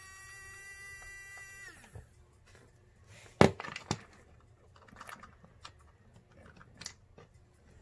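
Small brushed electric RC car motor whining steadily at high speed, then winding down with a falling pitch about two seconds in. A sharp knock follows about three and a half seconds in, with a second just after, then scattered small clicks and taps of parts being handled.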